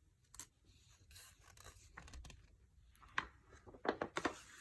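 Faint rustling and scratching with a few soft clicks, the loudest cluster near the end.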